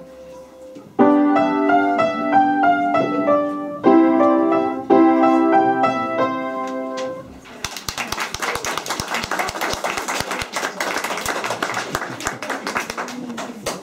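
Upright piano played by a child, with strongly struck chords about a second in and again around four and five seconds, the piece ending about seven seconds in. Then applause from a small audience, stopping just before the end.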